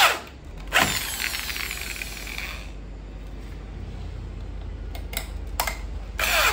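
Power drill driving screws to fix WPC wall panel clips, whirring in short bursts: one at the start, a longer run about a second in, and a few short ones near the end.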